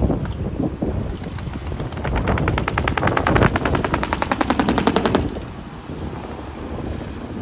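Heavy truck's engine and exhaust running, with a fast, even machine-gun-like rattle of pulses, about ten a second, starting about two seconds in and cutting off suddenly a few seconds later.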